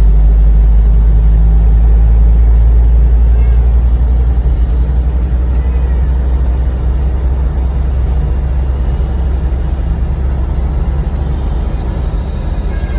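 Car cabin rumble while driving: a loud, steady low drone of engine and road noise that eases gradually and cuts off abruptly at the end.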